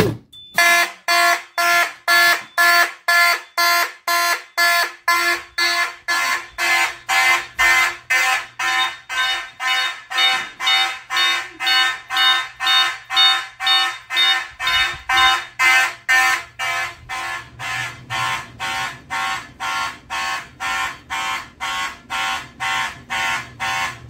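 Several fire alarm horns sounding together in march-time code, about two pulses a second, each pulse a buzzy blend of tones. The sound gets somewhat quieter about two-thirds of the way through.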